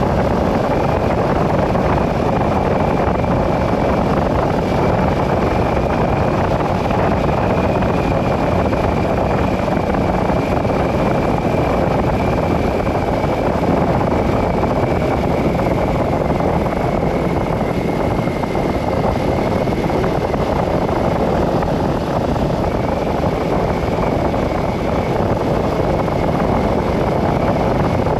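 Steady noise of a car driving along a road, with a faint high whine that sinks slightly in pitch partway through.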